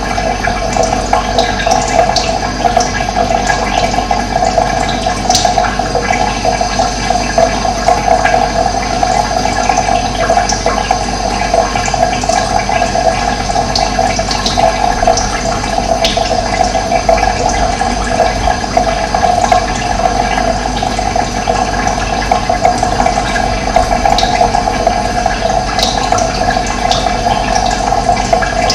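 Running water rushing steadily, a dense even flow with no pauses.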